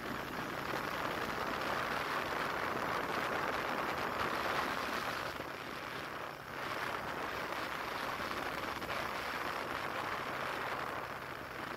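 Steady rushing road and wind noise from a vehicle driving along a city street, briefly dipping about six seconds in.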